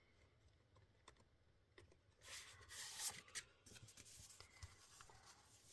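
Faint rustling of paper and card being handled, loudest from about two to three and a half seconds in, with a few light taps.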